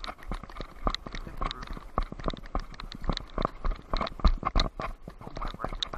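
Quick footsteps on hard ground, about two to three a second and irregular, with the camera knocking about as it is carried.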